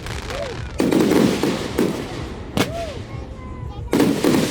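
Aerial fireworks bursting: four sharp bangs a second or so apart, the loudest about a second in and near the end, each followed by a short rumbling echo.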